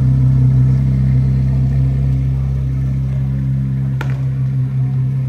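The 2023 Corvette Z06's flat-plane-crank V8 idles steadily as the car creeps forward, with one sharp click about four seconds in.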